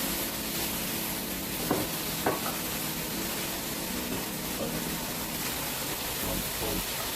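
Food sizzling in hot cooking oil in a pan, a steady hiss, with two sharp utensil clicks about two seconds in.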